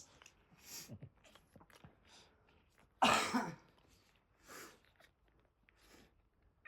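One loud, short cough-like burst of breath about three seconds in, with a few softer breathy huffs before and after it.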